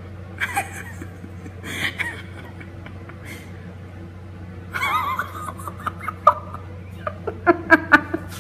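A person snickering, breaking into quick rapid bursts of laughter near the end, over a steady low hum.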